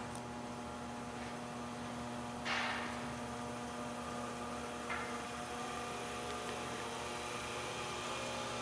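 Starley welding positioner's electric drive running with a steady hum, its whine rising slowly in pitch as the spindle speed is turned up toward maximum. There is a click about two and a half seconds in and a smaller one near five seconds.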